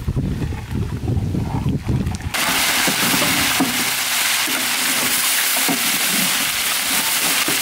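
Fish heads frying in hot oil: a loud, steady sizzle that starts abruptly about two seconds in, with light scrapes of a metal spatula turning them. Before that, a low rumble while thick mung bean dal is stirred in a large pot.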